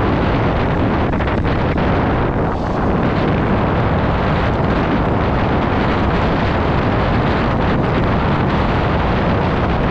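Steady, loud wind rush on a GoPro's microphone from a motorcycle riding at speed in the rain: a dense, even roar with no clear engine note standing out.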